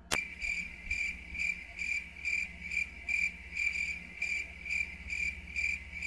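Crickets chirping in an even rhythm, about two chirps a second. The chirping starts and stops abruptly, as an edited-in night-ambience track.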